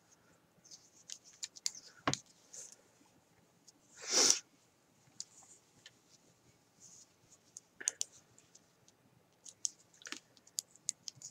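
Metal knitting needles clicking now and then as stitches are worked, with soft yarn rustle and one short, louder rustle about four seconds in.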